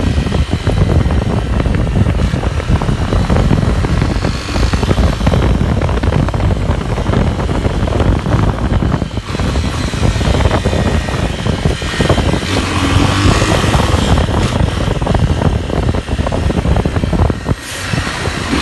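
Motorcycle engine running hard under acceleration while riding, going up through the gears, its note dropping briefly several times.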